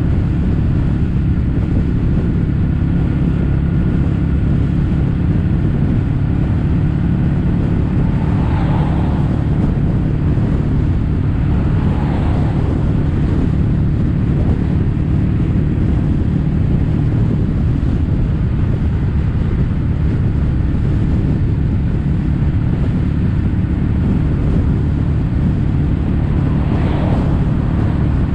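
Kawasaki W800's air-cooled parallel-twin engine running steadily under way through a Yamato stainless steel Cabton-style silencer, with wind noise over it. Brief whooshes come about a third of the way in, again a few seconds later, and near the end.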